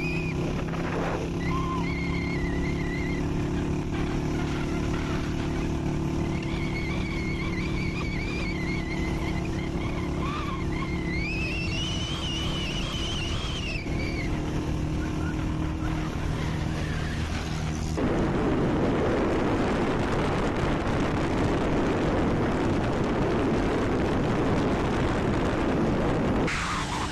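Car interior sound while driving: a steady engine and road hum with a wavering high whistling tone over it in the first half. About eighteen seconds in it switches abruptly to a louder, even rushing of wind and tyre noise, which eases again near the end.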